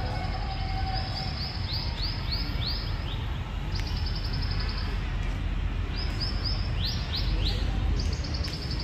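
Shrill animal calls repeating over and over: a held, buzzy high note, then runs of short falling notes, several times. Underneath is a steady low city traffic rumble.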